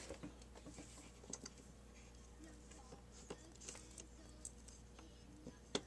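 Wire cutters cutting a clipper power-cord lead shorter. There are faint scattered clicks of handling, then one sharp snip near the end.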